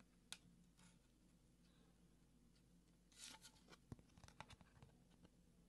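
Faint handling of trading cards on a wooden tabletop: a small click just after the start, then from about three seconds in a short spell of rustling and light clicks as a card is picked up, with one soft knock on the table.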